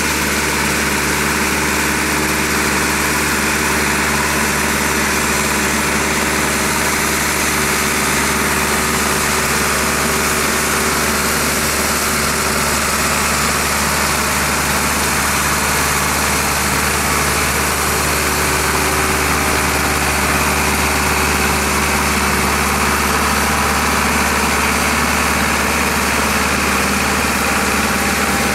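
Tractor diesel engine running steadily while pulling a disc harrow through the soil.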